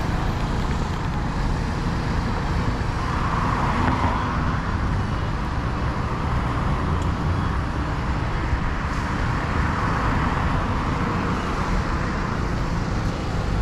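City street traffic heard from a moving bicycle: a steady road noise with a low rumble, swelling as vehicles pass about four seconds in and again around ten seconds in.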